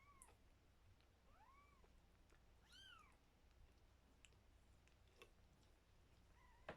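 A four-week-old kitten mewing faintly: three short, high calls, each rising and falling in pitch, in the first three seconds. A few faint clicks follow, the last one sharper, near the end.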